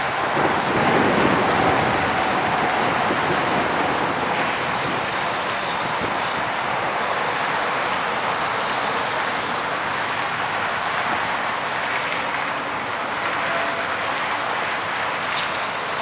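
Steady rushing noise of highway traffic, with cars, a pickup truck and a semi-trailer truck passing close, their tyres on the pavement making most of the sound.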